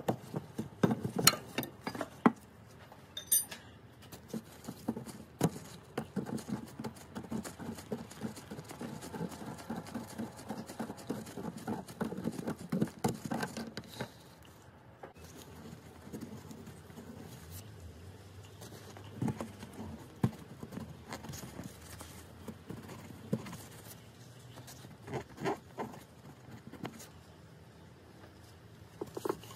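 Hand tools and metal fittings being worked by hand: scattered clicks and taps of a spanner and metal parts, with rustling handling noise. The loudest knocks come in the first few seconds.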